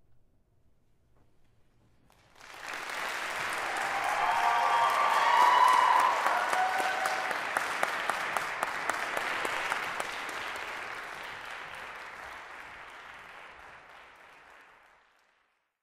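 Audience applauding: clapping starts about two seconds in, swells with a few cheers, then gradually fades and cuts off near the end.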